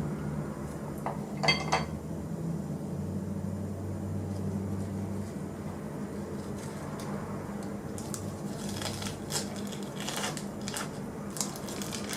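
Dishes and utensils clinking: one ringing clink about a second and a half in, then scattered light clicks near the end, over a low steady hum.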